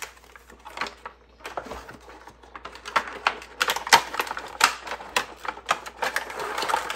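Hands handling items in a cardboard subscription box: tissue paper and shredded paper filler rustling, with a run of irregular clicks and taps from about a second and a half in.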